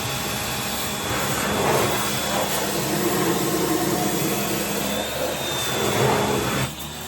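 Pressure washer spraying a hissing jet of water to blast old chaff out of a hay baler, with the machine's motor humming steadily underneath. The spray cuts off near the end while the motor hum carries on.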